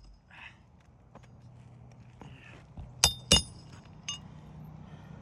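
Two sharp metallic hammer strikes with a ringing tone on a roofing snake tool about three seconds in, then a lighter tap about a second later: driving a roofing nail under a lifted shingle.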